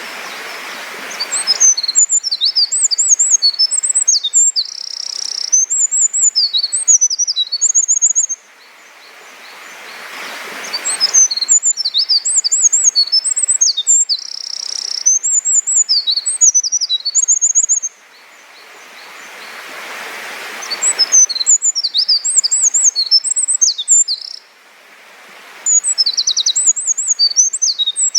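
Eurasian wren singing its long, rapid, high-pitched song of tumbling notes and trills, three times, each song lasting about six seconds.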